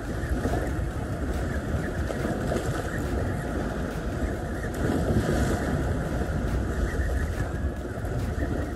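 Wind buffeting the microphone over open sea: a rough, steady rushing, heaviest in the low end, that swells briefly about five seconds in.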